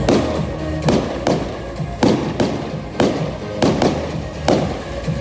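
Fireworks shells bursting in a quick series of sharp bangs, about one every half second to one second, each with a short echo, over music playing along.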